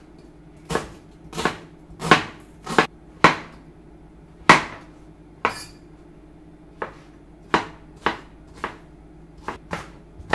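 A kitchen knife chopping vegetables on a cutting board, dicing onion, mushroom and zucchini into small cubes. It makes separate sharp knocks of the blade on the board at an uneven pace, roughly one or two a second.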